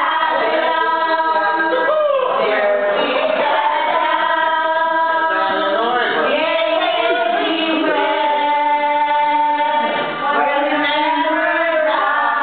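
Loud singing through a handheld microphone, with long held notes.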